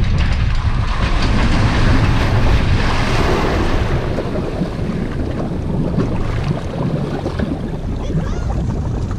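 Water churning and sloshing around a submerged boat trailer as a pontoon boat backs off it, with wind rumbling on the microphone. The churning is loudest a few seconds in.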